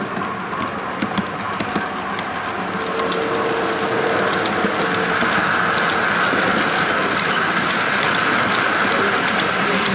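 H0-scale model freight train, headed by a model diesel locomotive, running past close by: a mechanical whirring of motor and gears with light clicking of wheels on the track. It grows louder about three to four seconds in as the locomotive comes alongside.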